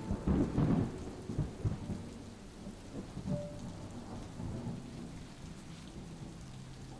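Thunderstorm ambience: a low rumble of thunder in the first two seconds over steady rain, which then carries on evenly.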